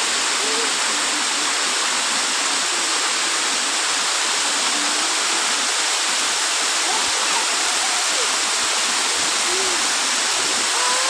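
Waterfall's steady rush of falling water, with faint voices in the background.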